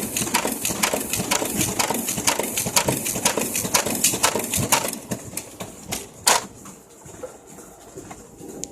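Photocopier running, with a fast, uneven clatter of mechanical clicks that stops about five seconds in; a single loud click follows about a second later.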